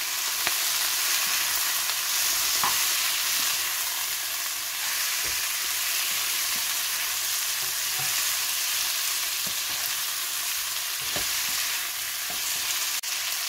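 Chicken strips, bell peppers and cherry tomatoes sizzling steadily in oil in a non-stick pan over high heat, stirred with a spatula, with a few light knocks of the spatula against the pan.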